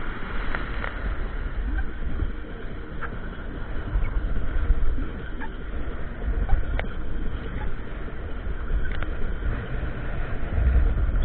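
Wind buffeting the microphone, a low rumble that swells and eases in gusts over a steady rushing background, with a few faint short chirps now and then.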